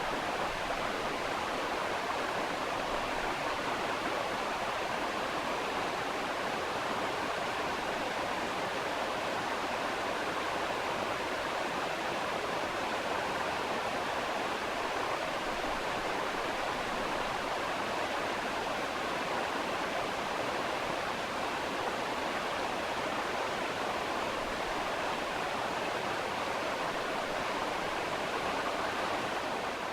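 Steady, even rushing noise like running water or pink noise, with no pitch, clicks or changes, standing in for the ultrasonic scaler's sound.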